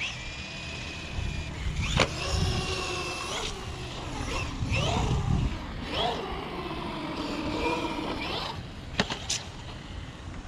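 Brushless electric motor of a 1/12-scale 4x4 RC car whining in several runs as it speeds up and slows, the pitch rising and falling, over a low rumble. Sharp knocks come about two seconds in and again near the end.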